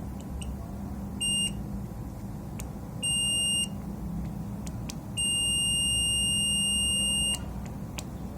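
Multimeter continuity beeper sounding three times while circuit points on a PS4 Slim power supply board are probed: a short beep, a slightly longer one, then a long steady beep of about two seconds. The readings are judged normal. Faint probe clicks are heard between the beeps.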